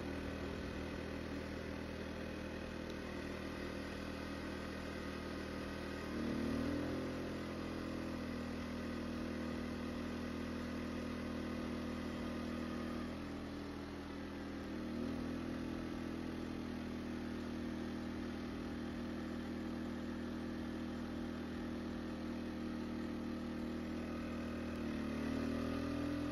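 Westinghouse WH2200iXLT inverter generator's 79cc engine running steadily, its pitch stepping up about six seconds in, dipping and rising again midway, and stepping up once more near the end as electrical load is added, up to about 90% of its rating. It holds speed under load without shutting down.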